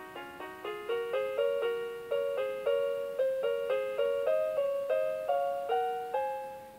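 Playskool Gloworm lullaby tune: a simple electronic melody of chiming, piano-like notes, each one fading after it sounds, about three notes a second. The last few notes are held longer as the tune draws to a close.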